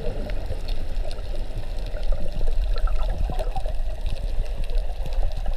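Underwater sound picked up by a camera in a waterproof housing: a muffled low rumble of moving water with many small clicks and crackles scattered through it.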